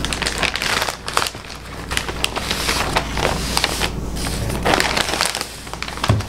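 White plastic poly mailer bag crinkling and rustling as a cardboard box is worked out of it by hand, with a low thud near the end as the box comes down on the wooden table.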